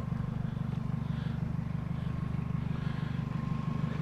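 Car engine running steadily with an even, rapid low pulse.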